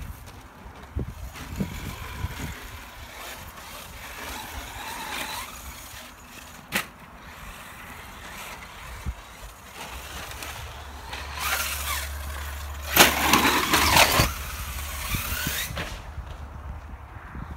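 Radio-controlled car's motor whining, its pitch rising and falling as it is driven over dirt jumps. A sharp knock comes about seven seconds in, and the loudest stretch, a rush of noise, comes about thirteen seconds in and lasts a second or so.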